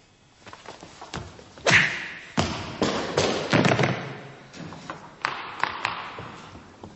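A scuffle: a quick, irregular series of thuds and smacks from blows landing, about eight in all, the loudest about two seconds in.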